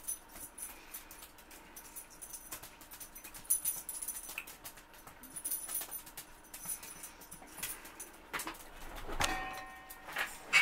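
Scattered small clicks and rustles of someone shifting at a cluttered table. About nine seconds in comes a short pitched creak, then a sharp knock near the end as the camera is moved.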